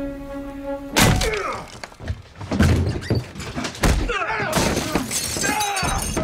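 Film fight sound: tense music is cut off about a second in by a sudden crash, followed by a scuffle of repeated blows and impacts, with men grunting and shouting.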